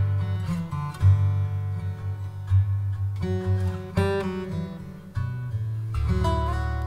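Background music: acoustic guitar chords strummed and picked at an easy pace, the last chord, about six seconds in, left ringing and fading.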